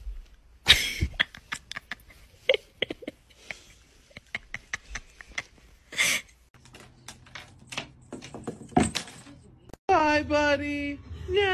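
A scatter of short sharp clicks and squeaks. Then, about ten seconds in, a cat that does not want a bath yowls: loud, drawn-out distressed wails, each falling in pitch.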